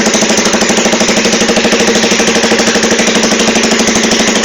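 Modenas Jaguh motorcycle with a custom exhaust idling steadily, loud, with a rapid, even beat of exhaust pulses.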